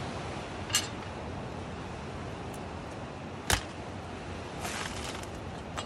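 Sprouted coconut's husk being pried apart on a metal husking spike: a few faint tearing scrapes and one sharp crack about three and a half seconds in, over a steady background hiss.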